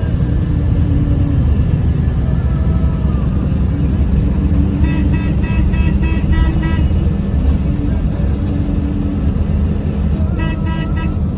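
Steady low rumble of a moving bus's engine and road noise, with vehicle horns honking in quick repeated toots about five seconds in and again near the end.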